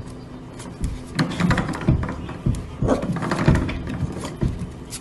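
Corgi puppy pawing and scratching at the gap under a door: irregular claw scrapes and clicks with soft thumps on the floor and door, busiest in the middle.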